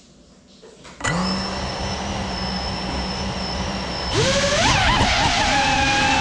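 GEPRC Cinelog35 cinewhoop's four brushless motors spinning with no propellers fitted, so the drone stays put. They start about a second in with a steady high whine. About four seconds in they are throttled up, louder, with a wavering, rising pitch.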